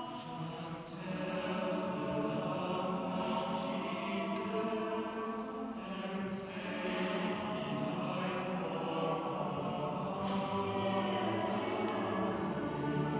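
Upper-school choir singing slow, held chords.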